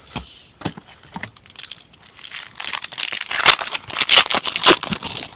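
Trading cards being handled and slid off a stack, with light clicks and then a denser rustling stretch broken by three sharp snaps.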